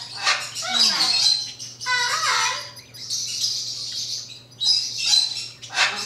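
Pet macaw chattering and squawking in several short, irregular bursts.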